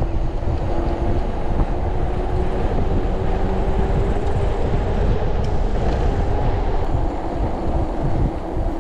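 Wind rushing over the action camera's microphone and mountain-bike tyres rolling fast on asphalt: a loud, steady rumble with a faint constant hum running through it.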